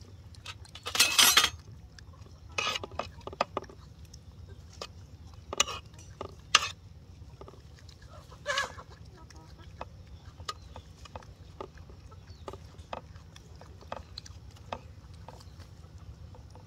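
Scattered taps and clinks of dishes and utensils being handled, with a louder short scrape or rustle about a second in and a brief call a little past the middle, over a steady low hum.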